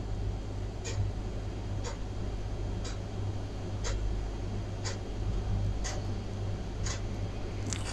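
Sharp ticking at a very even pace of about once a second, over a steady low hum.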